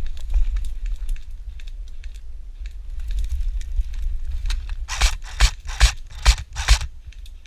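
Scraping, crunching rustles from a player moving through dry brush. There are faint scratches at first, then about five louder ones roughly half a second apart in the second half, over a steady low rumble of wind and handling on the body-worn microphone.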